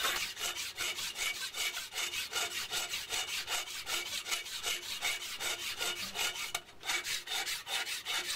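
Hand tool rubbed rapidly back and forth over the face of a cast aluminium table, about four strokes a second with a brief pause about two-thirds of the way in: the casting's surface is being worked down flat by hand.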